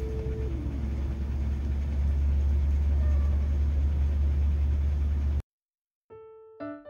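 A low, steady engine rumble from a nearby vehicle. It grows louder over the first couple of seconds and cuts off abruptly about five and a half seconds in. After a short gap, light piano music begins near the end.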